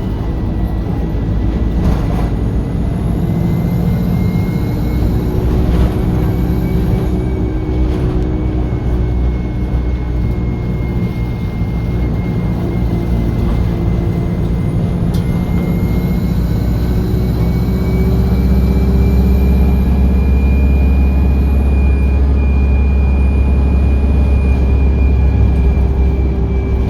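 A bus's diesel engine running under power, heard from on board as a steady low drone. A whine creeps up in pitch and a high whistle rises and falls twice, and the drone grows a little louder about two-thirds of the way through as it pulls harder.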